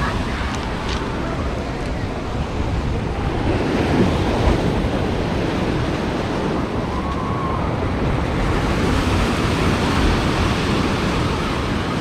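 Black Sea surf breaking and washing up a pebble beach in a steady rush, swelling a little louder about four seconds in.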